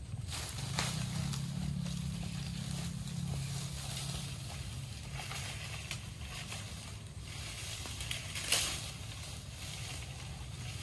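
A low engine hum, strongest in the first few seconds and then fading, with scattered sharp clicks and cracks over it; the loudest crack comes about eight and a half seconds in.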